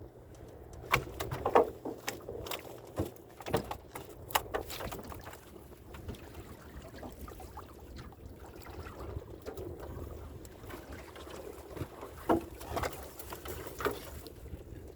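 Irregular knocks and splashes of water aboard a small boat, over a low steady rumble; the knocks bunch together in the first few seconds and again near the end.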